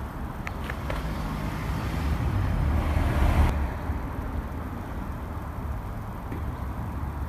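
Low vehicle rumble, swelling from about two seconds in and dropping off suddenly at about three and a half seconds, then running on steadily.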